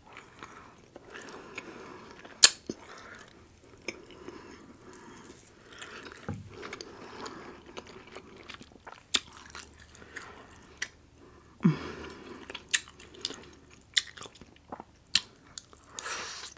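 A person eating close to the microphone: soft, irregular chewing and biting, broken by sharp crunchy clicks now and then.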